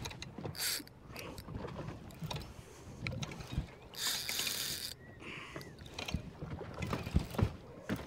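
Fishing reel cranked under load in uneven clicks and ratcheting while fighting a hooked fish on a bent rod, with water slapping the boat's hull. A brief rush of noise comes about four seconds in.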